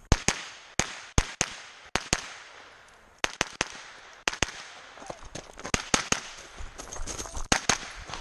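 Rapid gunfire from a CMMG pistol-caliber carbine: sharp shots fired mostly in quick pairs, with a brief lull about two to three seconds in before the shooting picks up again.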